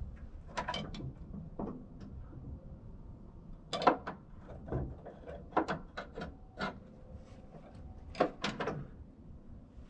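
Irregular metal clanks and rattles from hand-pumping the hydraulic cab lift jack on a Kenworth K100E cabover, raising the cab on its newly filled lift cylinder. The loudest clank comes about four seconds in, with another quick cluster near the end.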